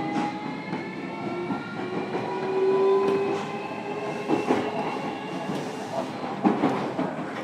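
JR Kyushu 305 series EMU heard from inside a motor car while running under power: the VVVF inverter and permanent-magnet traction motors give a whine of several tones rising slowly together as the train gathers speed. The wheels clack over rail joints a few times in the second half.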